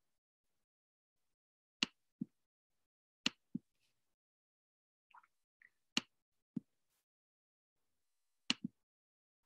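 Sharp clicks in pairs, four times: each pair is a bright click followed a fraction of a second later by a duller, lower one, with silence between.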